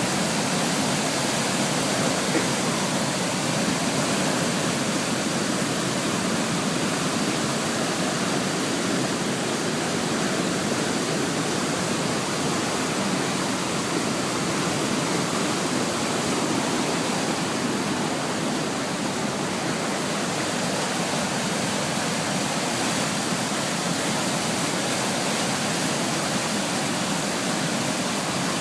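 Gooseberry Falls in flood: high floodwater pouring over the falls in a steady, unbroken rush.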